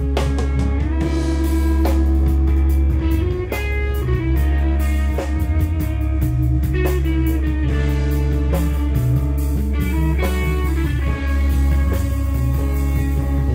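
Live blues-rock band playing: an electric guitar holds and bends notes over electric bass guitar and a drum kit.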